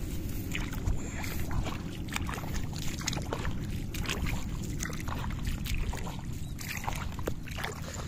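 Barefoot steps wading through the shallow water and mud of a flooded rice paddy, with irregular small splashes. Wind noise on the microphone runs under them as a steady low rumble.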